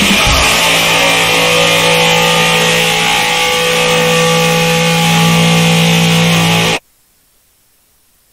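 Crust punk recording: the drums drop out and a distorted electric guitar chord is held, ringing steadily, then cuts off abruptly about seven seconds in, leaving only a faint hiss.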